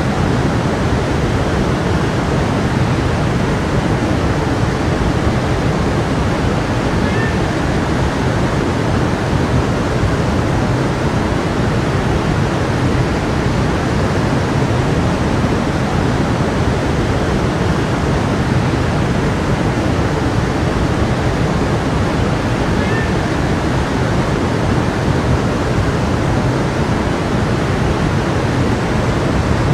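A stream flowing, a steady unbroken rush of water.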